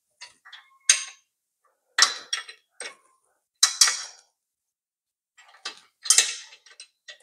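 Short, sharp metallic clicks and clinks in about six irregular clusters, as screws are started into the nose of a Triumph Stag's cast-iron differential.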